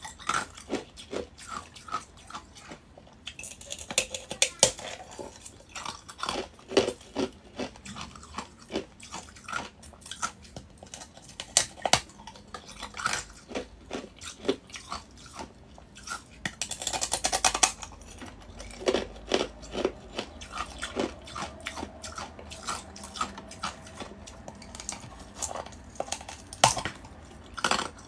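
Close-miked crackling and crunching of ice from a balloon-frozen ice ball: a string of sharp, irregular cracks, with a denser run of them about two thirds of the way through.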